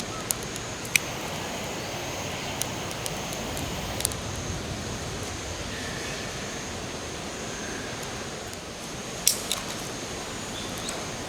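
Outdoor ambience: a steady rushing noise with a thin, steady high-pitched drone over it. Several sharp clicks and knocks break through, the loudest about a second in and a pair just after nine seconds.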